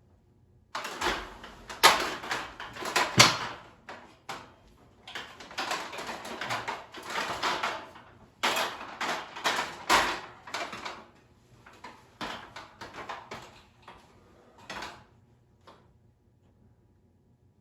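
Irregular clattering and scraping of hard parts being handled, in bursts a second or two long with short pauses between and a few sharp knocks.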